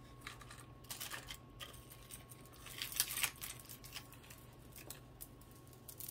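Glass beads and silver-tone chain of a necklace clicking and rattling lightly as it is untangled by hand. The clicks are scattered, with small clusters about a second in and again around three seconds in.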